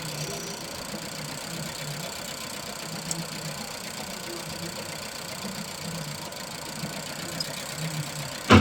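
Nissan Juke engine idling roughly with an uneven, lumpy beat from a misfire, which testing traced to a cylinder with no compression. A single sharp knock sounds near the end.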